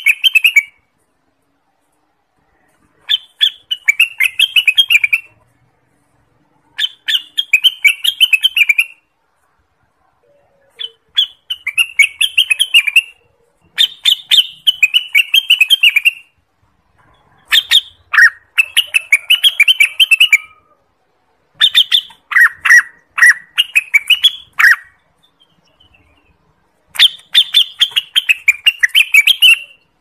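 Orange-spotted bulbul (cucak wilis) singing: about seven phrases of quick, chirpy notes, each two to three seconds long, with short pauses between them.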